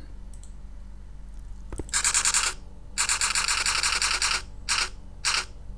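Typewriter-style text sound effect: runs of rapid, even clicking in four bursts, a long one in the middle, as a slide title types on letter by letter, preceded by a single click.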